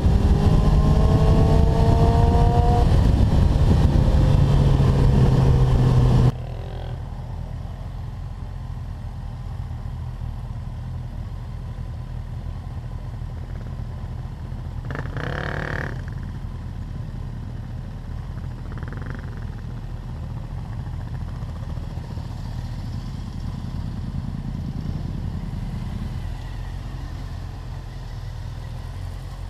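Motorcycle at road speed with heavy wind rush over the engine, the engine pitch rising as it accelerates. About six seconds in the sound cuts off suddenly to a quieter, steady hum of motorcycle engines idling nearby, with a short louder sound about halfway through.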